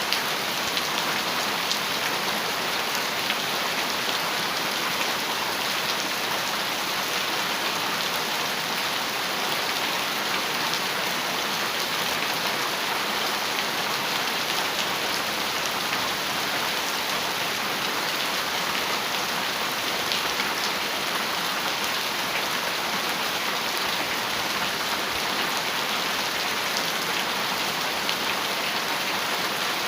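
Heavy rain falling steadily on a metal roof: a dense, even hiss with occasional sharper drop ticks.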